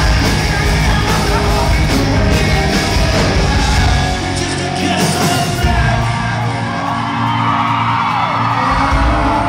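Live rock band playing loudly, electric guitars and drums, with the lead singer's voice over them; near the end he holds one long sung note that bends in pitch.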